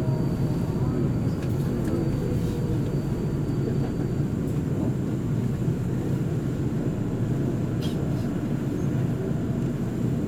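Incheon Subway Line 2 driverless metro train running between stations, heard from inside the car: a steady low rumble of wheels on rail. A faint whine falls in pitch over the first couple of seconds, and there are a few faint clicks.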